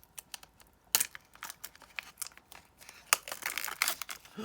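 Crinkly plastic packaging of a miniature toy being handled and opened: irregular crackles and rustling, with sharper crackles about a second in and just after three seconds.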